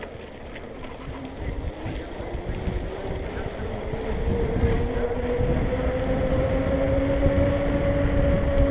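Electric bike's S1000 conversion-kit motor whining as the bike accelerates, its pitch rising steadily for several seconds and then holding, with a second lower steady tone beneath. Low wind rumble on the microphone.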